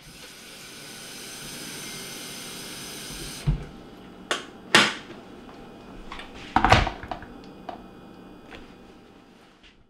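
Tap water running into a stainless steel electric kettle, stopping abruptly about three and a half seconds in. Then come a few sharp clicks as the kettle's lid is snapped shut, a loud clunk as the kettle is set down on its base, and a couple of small clicks as it is switched on.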